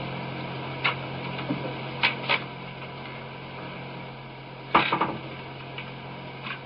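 Steady low hum and hiss of an old tape recording, with a few scattered clicks and knocks. The loudest is a short clatter of several knocks about five seconds in.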